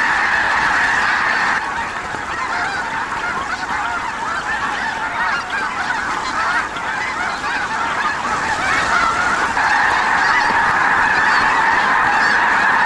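A vast flock of snow geese calling all at once as it flushes into the air in alarm: a dense, unbroken chorus of honking, swelling a little about ten seconds in.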